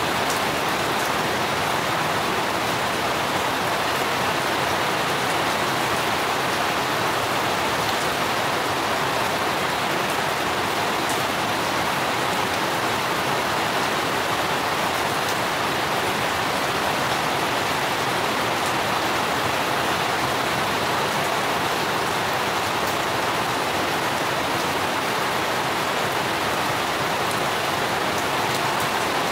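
Steady rain falling on garden foliage and hard surfaces, an even hiss that never lets up, with now and then a single drop ticking.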